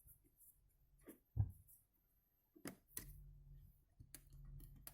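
A few faint clicks and taps of a small screwdriver working a screw out of a smartphone's back housing, the loudest about a second and a half in. A low steady hum starts about three seconds in.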